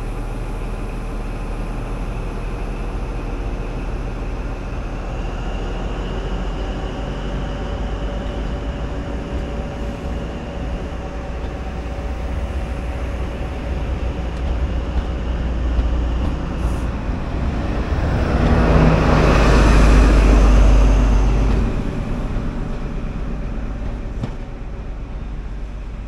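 High Speed Train (InterCity 125) running past at close range: steady diesel drone and rumble of coaches on the rails. It swells to its loudest about two-thirds of the way in as the rear diesel power car passes, then eases off as the train pulls away.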